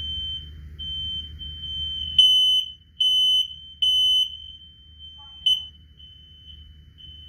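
Ceiling smoke alarm sounding its high, piercing alarm tone in repeated beeps, loudest in a run of three long beeps about two seconds in, with fainter beeps before and after. This is the alarm going off under test.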